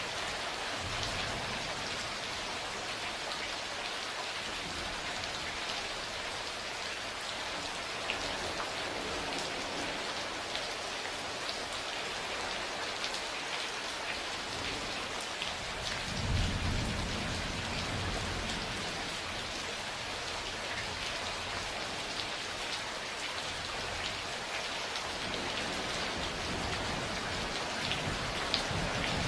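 Steady rain falling, with fine drop ticks, and a low roll of thunder a little past halfway; fainter rumbles come near the start and end.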